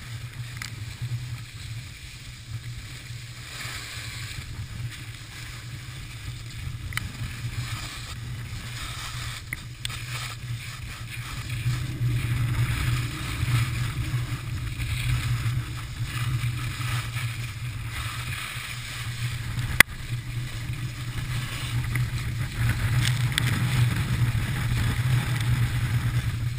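Skis sliding and carving on packed snow, a steady rushing hiss, with wind rumbling on the moving action camera's microphone; it grows louder about halfway through, and a single sharp click comes near the end.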